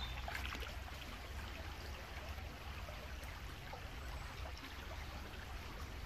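Shallow river water running steadily over stones, a soft constant rush.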